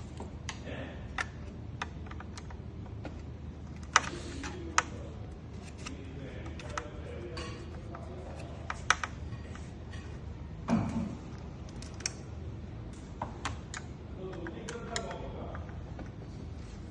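Irregular sharp clicks and taps of hands working on a computer's plastic casing and parts, loudest about 4 s, 5 s, 9 s and 12 s in, over a steady low hum.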